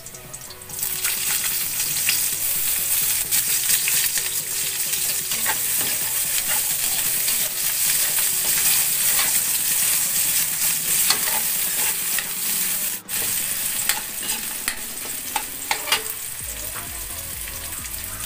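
Sliced onion and garlic sizzling in hot oil in a metal wok, the sizzle jumping up loudly about a second in as the onion goes into the pan. A metal spatula scrapes and taps against the wok as they are stirred.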